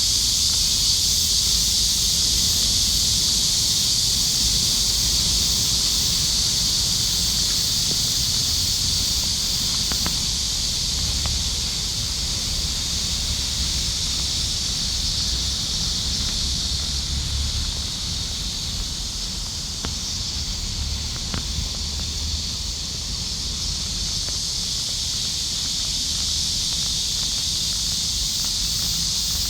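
Cicadas in a summer chorus: a dense, steady, high-pitched buzz that eases slightly in the middle and swells again near the end, over a low rumble.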